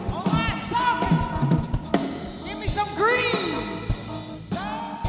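Band music with singing and a drum kit, the voices sliding up and down in pitch.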